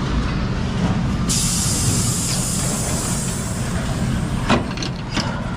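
Scania log truck's diesel engine idling, with a sudden burst of compressed air hissing out from its air system about a second in that fades over a couple of seconds. A couple of short knocks near the end.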